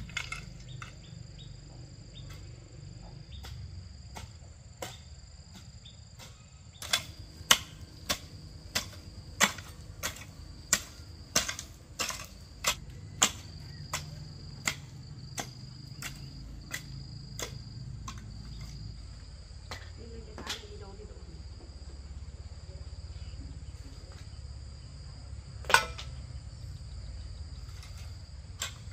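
A run of about twenty sharp chopping blows from a hand tool, one or two a second, then a single blow near the end. A steady high insect trill runs throughout.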